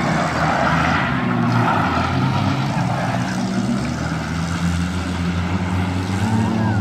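Off-road jeep engine running steadily, with wind and road noise.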